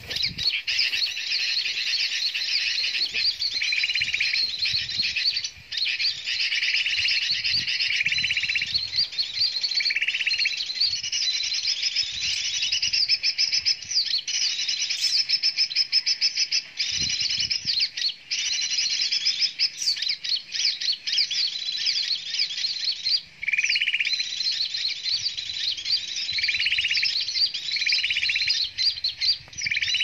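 Dense, unbroken high-pitched chirping and twittering of small birds, with a lower chirped call repeating every second or two.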